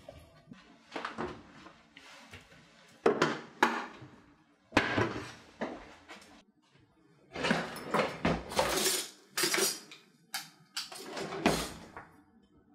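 Wooden kitchen cabinet doors being opened and shut, with things inside bumping and clattering, heard as an irregular string of knocks and bangs.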